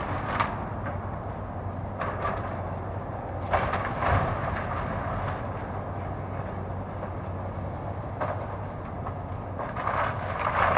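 Komatsu hydraulic excavator's diesel engine running with a steady low hum while it tears down a brick house. The crash and clatter of breaking wood, brick and roofing comes in several bursts: just after the start, around three and four seconds in, near eight seconds, and again near the end.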